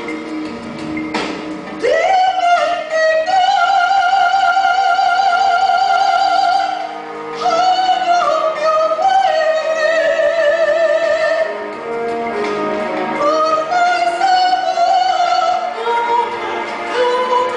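Operatic soprano voice singing long held high notes with a wide vibrato, the first one swooping up into pitch about two seconds in, over a soft accompaniment.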